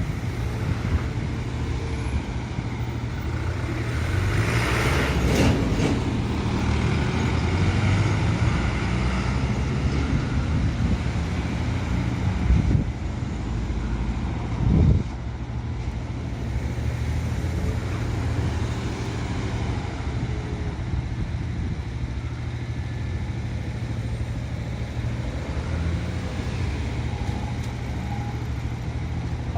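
Road traffic at a street corner: a steady low engine drone with vehicles passing, the loudest pass swelling about four to six seconds in, and shorter ones near the thirteen- and fifteen-second marks.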